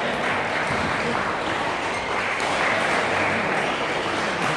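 Spectators applauding in a large hall, with some voices mixed in.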